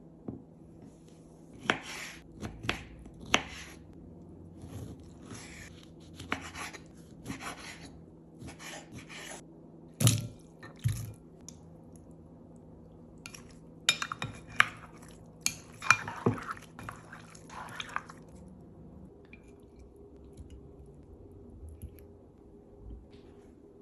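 Kitchen utensils and dishes clinking and scraping in irregular clusters of short knocks during salad preparation. It goes quieter near the end.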